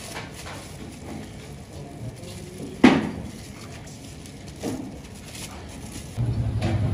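A metal ladle knocking against ceramic serving bowls and the pot while curry is ladled out, with one sharp clack about three seconds in and a softer knock a couple of seconds later. Near the end a steady low engine rumble comes in.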